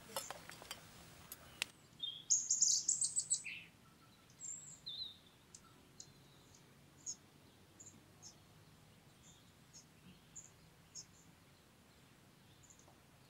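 Wild songbirds calling in woodland: a burst of high chirping song about two seconds in, then short, faint high chirps repeated about once a second. A few sharp clicks come at the start.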